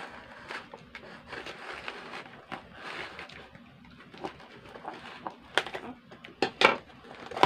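Scissor blade scraping and slicing along the packing tape on a cardboard box's seam, with rustling of tape and cardboard. A few sharp knocks and snaps come about five to seven seconds in.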